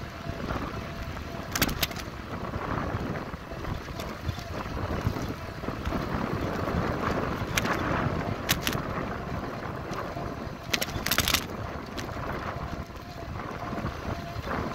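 Bicycle riding on asphalt: steady wind rush on the microphone with rolling tyre noise, broken by a few brief sharp rattling clicks of the bike and camera mount jolting.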